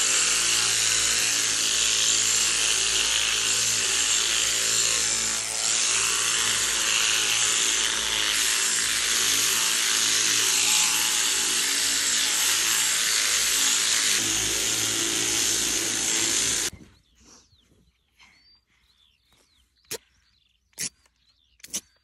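Electric sheep-shearing handpiece running steadily as it clips fly-struck wool from a sheep's back, then cutting off suddenly about 17 seconds in. A few sharp clicks follow in the quiet.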